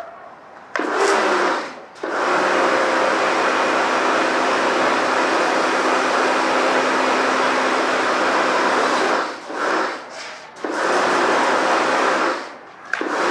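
Karcher K2 electric pressure washer running and spraying water, its motor humming under a loud hiss. It starts and stops several times as the spray trigger is pulled and let go.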